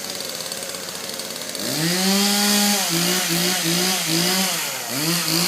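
Two-stroke chainsaw running at a low idle, then about a second and a half in the throttle is opened and the saw revs up, then is revved up and down several times in quick succession.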